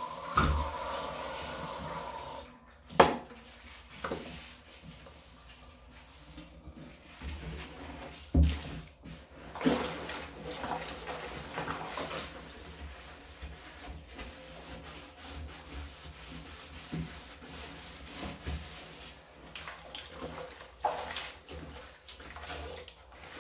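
Sponge scrubbing the inside of a wet plastic garbage can in a bathtub: irregular rubbing and swishing, with a sharp knock about three seconds in and a few lighter knocks later. A steady hiss of water runs in the first couple of seconds.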